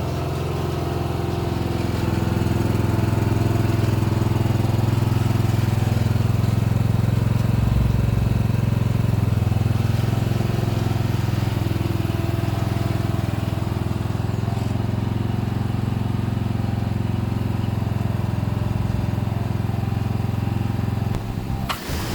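Craftsman LT1000 riding lawn mower's engine running steadily with a low, even drone, then cutting off abruptly near the end.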